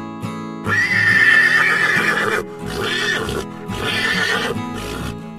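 Horse whinnying: one long call starting about a second in, then two shorter calls. Background guitar music plays underneath.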